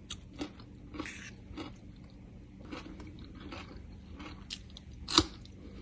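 A person chewing a mouthful of crunchy raw vegetable salad, giving faint scattered crunches, then one louder sharp crunch about five seconds in.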